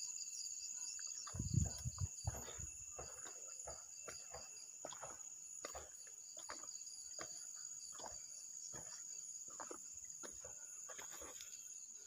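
Night insects chirring in a steady, high-pitched chorus. Close rustles and clicks come and go over it, with a few louder low thumps about one and a half to two and a half seconds in.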